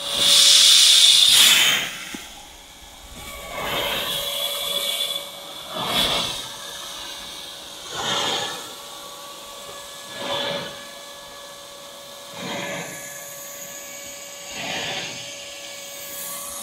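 Yüzüak Jet 50 sprinkler gun throwing a high-pressure water jet: a steady hiss with a louder swish about every two seconds as the jet sweeps past. The swish is loudest in the first two seconds.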